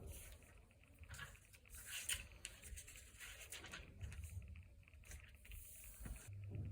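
Faint close-up handling noises of crafting by hand: light scrapes, taps and paper-like rustles, thickest in the first few seconds. A steady low hum comes in near the end.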